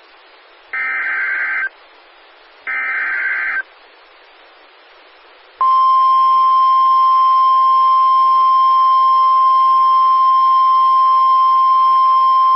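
Emergency Alert System transmission for a National Weather Service severe thunderstorm warning. Two data-header bursts of about a second each are heard, the end of the SAME header. About five and a half seconds in, the steady single-pitch NWS warning alarm tone begins and holds.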